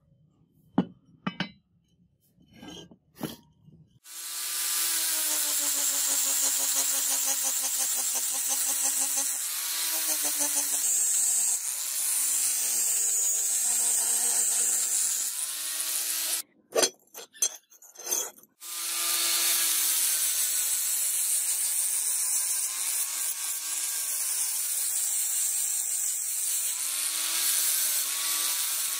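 Power grinder working the edges of a rusted steel sword blade, a steady motor whine over a hiss of metal being ground, the pitch dipping as it bites in. A few knocks of the blade being handled come before it. It stops about two-thirds of the way in for a few more knocks, then runs again.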